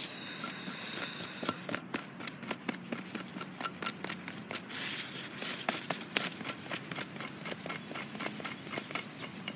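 Knife blade scraping the spine clusters off a fresh nopal (prickly pear cactus) pad, a fast irregular run of scratchy clicks as the blade flicks small pieces off onto the cardboard beneath.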